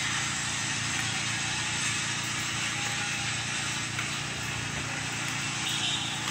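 A steady mechanical hum with a low drone and a hiss, unchanging throughout.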